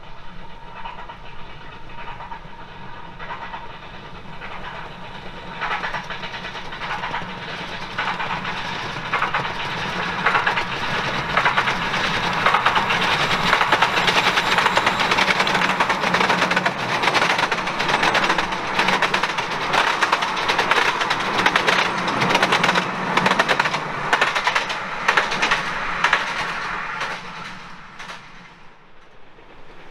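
Miniature steam locomotive hauling a train of passenger carriages passes close by. Its wheels clatter and click rapidly over the rail joints, growing louder to a peak in the middle, then fading away near the end as the train leaves.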